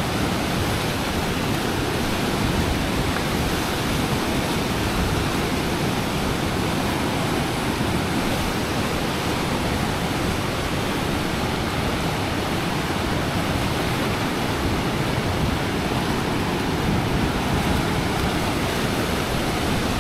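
Fast river water rushing steadily at a dam, an even, unbroken rush.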